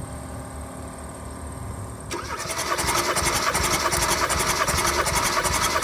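A 2016 Kia Soul's 1.6-litre four-cylinder engine cranking on its starter with fast, even pulses, starting abruptly about two seconds in. The engine is being turned over with the spark plugs out for a compression test on cylinder 2.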